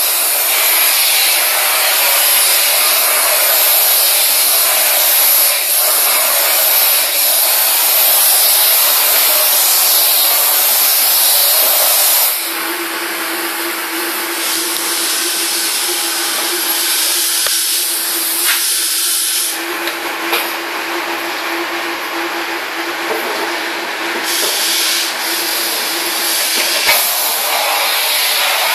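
Steam cleaner's floor tool hissing steadily as it jets steam onto carpet. About twelve seconds in the hiss drops a little and a steady hum comes through underneath it.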